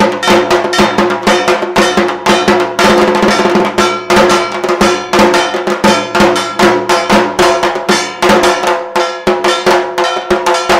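Fast, steady drumming at about four to five strokes a second, with a ringing metal percussion instrument struck along with the beats.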